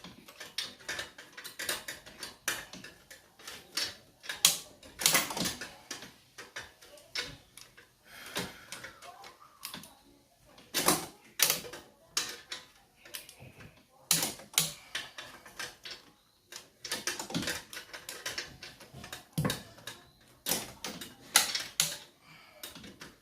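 Irregular sharp clicks and knocks of hand tools and metal engine parts being handled and fitted during engine assembly, coming in uneven clusters.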